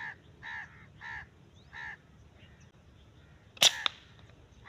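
A bird calls four times in quick succession. About three and a half seconds in, a scoped M22 rifle fires with a single sharp crack, followed a moment later by a second, fainter crack.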